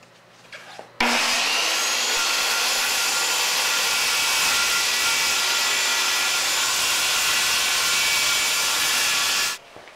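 Circular saw starting up about a second in and cutting through a sheet of plywood: a loud, steady whine with cutting noise that stops abruptly near the end.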